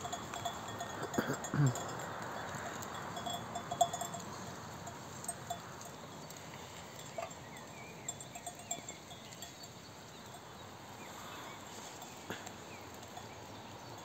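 Flock of sheep browsing in brush, small bells clinking now and then through the first half, with a short low bleat about a second and a half in.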